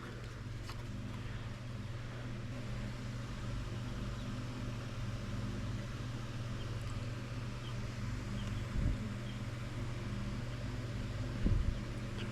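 Steady low machine hum, with two dull knocks, one about nine seconds in and one near the end.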